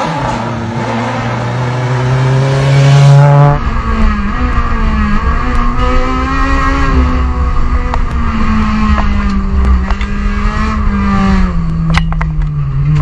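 Rally car engines at high revs. First a car on a snow stage comes on hard, its engine note rising and growing louder. Then, heard from inside a Honda Civic rally car's cockpit, the engine runs at high revs with its note dipping at gear changes, and a few sharp clicks near the end.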